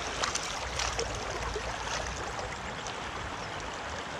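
A trout creek running steadily: an even rush of flowing water, with a few faint ticks in the first second.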